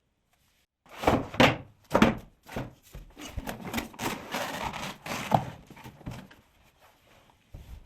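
Laptop unboxing handling noise: a few knocks as the box and its contents are set down and moved, then several seconds of rustling packaging that fades out, and one more knock near the end.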